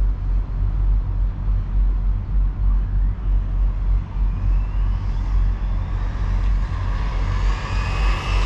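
Low, uneven rumble of wind on the microphone, with the faint whine of a Team Corally Syncro4 RC car's brushless motor out on the street, rising in pitch in the second half.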